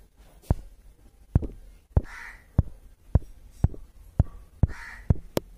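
A series of short, sharp knocks, about two a second and roughly ten in all, with a faint brief hiss twice among them.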